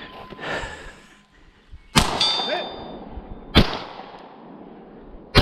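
Three shots from a Beretta LTT 9mm pistol, about a second and a half apart. The first and last are each followed by the brief ring of a steel target being hit.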